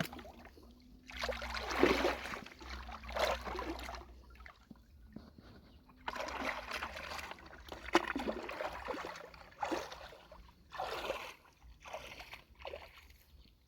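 Lake water sloshing and splashing in irregular bursts as someone moves through it, picking snails and clams by hand.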